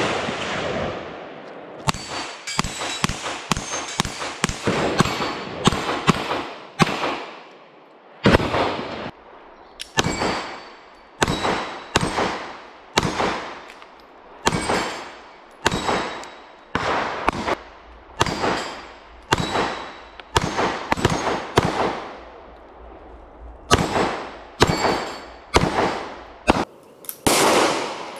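A steady string of pistol shots, about one to two a second with a short pause near the end. Many shots are followed by the ringing ping of struck steel plate targets.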